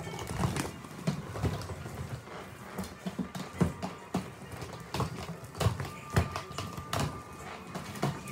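Quad roller skates rolling and knocking on a hard indoor floor during footwork practice: a run of sharp, irregular clacks as the skates are set down and pushed off, the loudest between about three and a half and seven seconds in.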